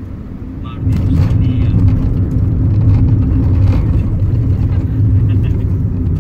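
Car engine and road noise heard from inside the car as it drives a winding mountain road: a steady low rumble that grows louder about a second in as the car picks up speed.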